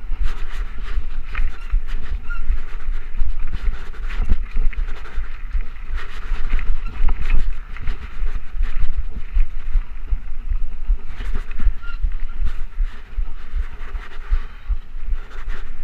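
Trek Rumblefish Pro mountain bike riding fast over a dirt trail, heard from a chest-mounted action camera: heavy wind buffeting on the microphone, steady tyre noise on the dirt, and frequent short rattles and knocks from the bike over bumps.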